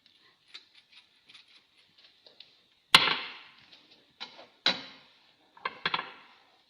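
Kitchen clatter: light clicks, then a sharp knock about three seconds in and four more knocks with a brief ringing decay, like utensils and cookware being handled at the stove.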